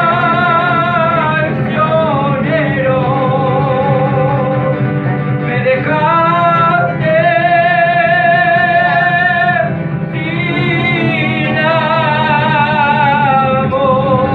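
A man singing long held notes with a wide vibrato, accompanied by guitar.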